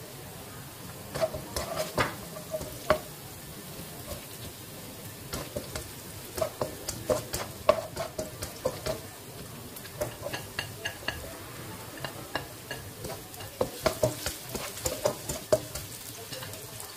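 Diced vegetables frying with a steady sizzle in a non-stick wok, while a utensil stirs and scrapes them, tapping against the pan in clusters of sharp clicks with short pauses between.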